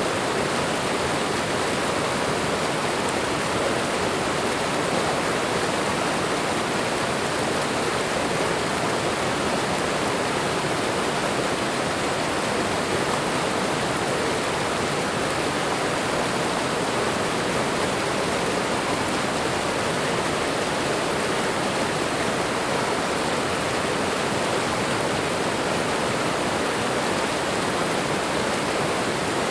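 Waterfall: water falling and rushing with a steady, unbroken roar.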